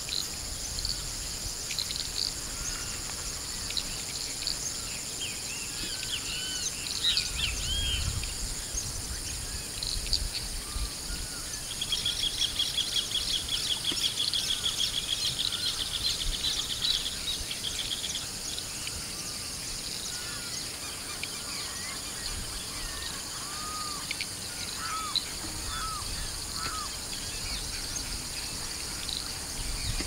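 Many wild birds calling and singing over a steady high-pitched insect drone. Short whistled notes that rise and fall come and go throughout, and a fast, even trill runs from about twelve to eighteen seconds in.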